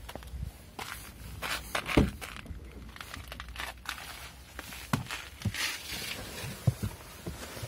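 Footsteps, rustling and handling knocks as someone opens the Audi A6's driver's door and gets into the seat, with a sharp knock about two seconds in the loudest sound.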